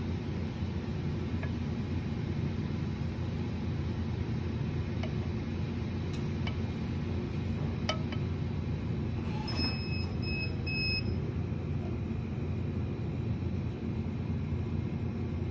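Steady low machine hum of café background noise, with three short high electronic beeps about ten seconds in, the first a little longer than the other two.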